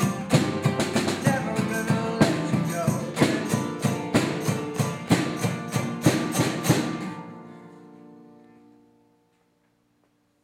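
Two acoustic guitars strummed in a steady driving rhythm with about three sharp accents a second, closing on a last chord about seven seconds in that rings out and fades away.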